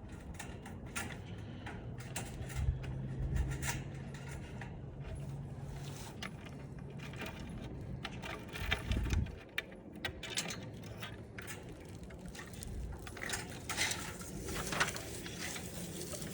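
Irregular knocks, clicks and rattles of a ladder being grabbed and carried, with a few heavier thumps. A steady low hum runs from about two to eight seconds in.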